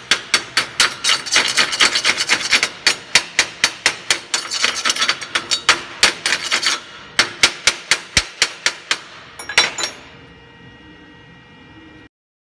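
Rapid metallic taps of a hammer chipping slag off a fresh weld bead on steel tubing, about five strikes a second, with a brief pause in the middle. The taps stop near the end.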